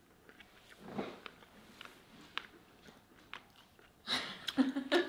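Quiet chewing of a mouthful of pan-cooked salmon, with faint scattered mouth clicks. About four seconds in, a voice breaks in much louder.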